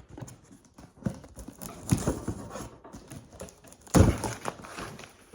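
Packing paper rustling and crumpling as it is pulled out of a cardboard box, with irregular knocks from handling, and a loud thump about four seconds in.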